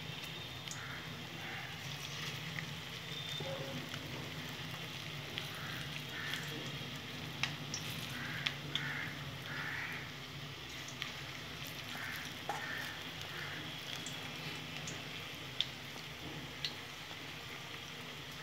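Coriander-leaf and gram-flour batter fritters frying in hot oil in a steel kadai: a steady sizzle with scattered sharp pops and crackles.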